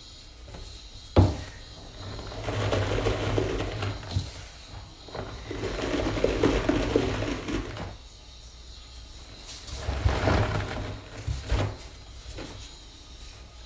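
Dry sponge packed with Comet cleanser powder being squeezed and crushed by hand, making crunching, rustling squeezes in three long bouts. There is a sharp knock about a second in and a few lighter knocks later.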